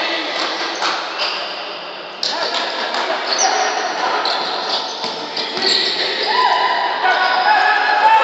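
Basketball game sounds echoing in a gym: the ball bouncing on the court, short squeaks of sneakers, and voices of players and spectators calling out.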